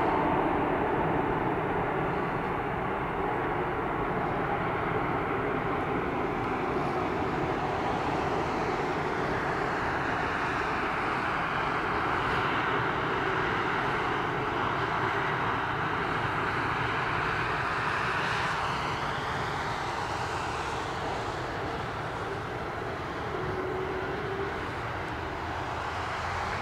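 Airbus A320neo's CFM LEAP-1A turbofan engines running at low taxi power as the jet rolls along the runway: a steady jet engine noise that eases slightly in the second half.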